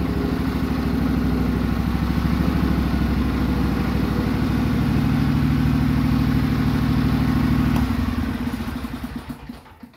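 Craftsman riding lawn tractor's Briggs & Stratton Vanguard V-twin engine running steadily as the tractor is driven. About eight seconds in it is switched off and dies away over the next two seconds.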